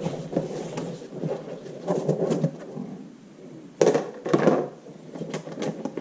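A cardboard parts box being opened by hand: irregular scraping and rustling of the cardboard and packing, with two louder bursts about four seconds in.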